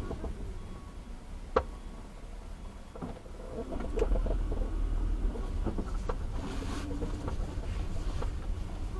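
Low rumble of a car in city traffic heard from inside the cabin, with scattered clicks and knocks. A sharp click comes about one and a half seconds in, and the rumble grows louder about four seconds in as the car pulls away.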